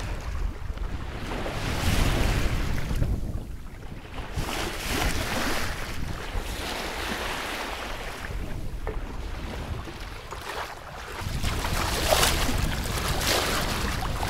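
Wind buffeting the microphone over seawater rushing and splashing along the hull of a yacht under way, swelling and easing in gusts.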